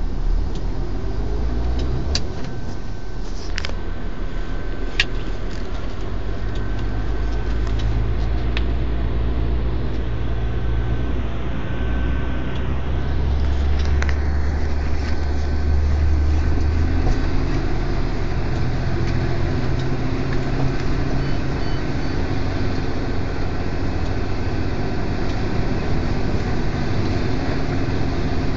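MAN TGS 35.440 truck's six-cylinder diesel engine running steadily with a deep drone that grows a little louder about halfway through. A few sharp knocks or clicks sound in the first half.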